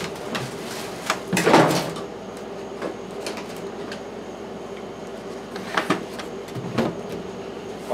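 Plastic ice chest's lid lifted open with a clunk and scrape about a second and a half in, then scattered knocks and clunks as things are moved about inside the chest. A steady hum runs underneath.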